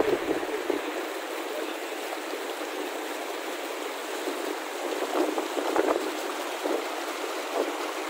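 Mountain stream rushing steadily over rocks, an even wash of running water, briefly louder about five to six seconds in.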